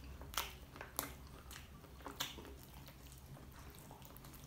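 Quiet chewing and mouth smacks of a man eating sauce-coated dynamite shrimp with his fingers, with a few short sharp clicks about half a second, one second and two seconds in.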